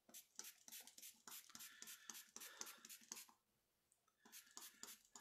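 Near silence with faint, irregular small clicks and light rustling, pausing for about a second near the end.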